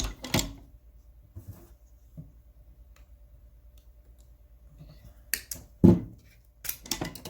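Hand tools (ratchets) being handled: sharp clicks and knocks at the start, a few light taps, then a cluster of clicks with one loud knock near the end.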